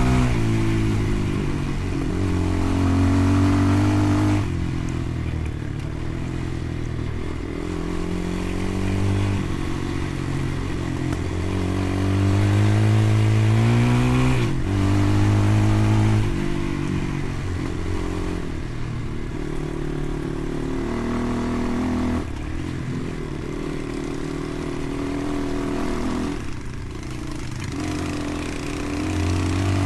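Motorcycle engine running under way, its pitch climbing as it accelerates and dropping sharply at each gear change, several times over.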